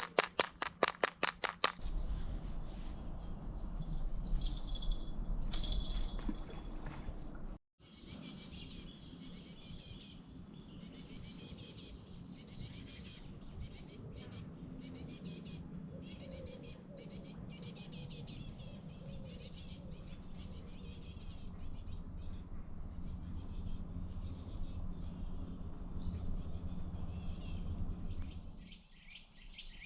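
Small songbirds chirping and singing over and over in forest, above a low steady background noise. A rapid run of clicks comes in the first two seconds.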